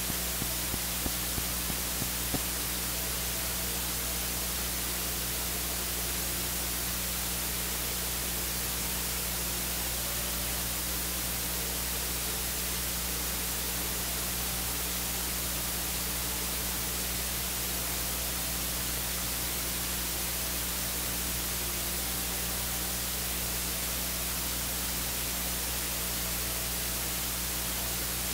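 Steady hiss of a recording's noise floor with a low electrical hum under it, and a few faint clicks in the first couple of seconds.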